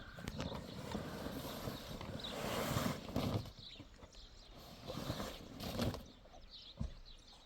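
Hoofed livestock moving on hard ground: hooves clopping and shuffling, busy for the first few seconds, then scattered single knocks.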